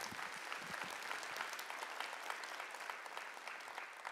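Audience applauding, many hands clapping, thinning out near the end.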